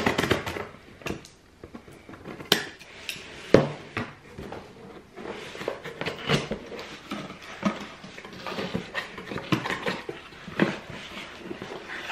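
A cardboard shipping box being opened: large scissors jab and cut through the packing tape with sharp clicks and knocks in the first few seconds, then the cardboard flaps and the contents rustle and crinkle as hands work the box open.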